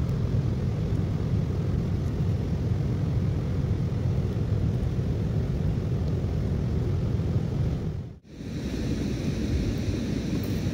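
Steady low rumble of wind buffeting the microphone outdoors, briefly dropping out about eight seconds in.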